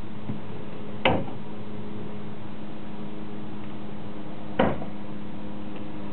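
Two sharp knocks, the first about a second in and the second three and a half seconds later, over a steady low hum inside a stopped car.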